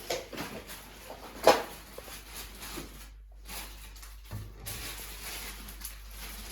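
Kitchen cupboard door knocking shut once, sharply, about one and a half seconds in, with fainter small knocks and handling sounds around it.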